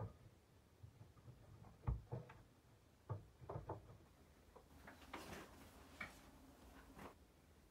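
Faint household handling sounds: light knocks and clicks of notebooks and stationery being set down on a wooden shelf, then a short stretch of scraping and rustling about five seconds in as a box is slid onto a shelf.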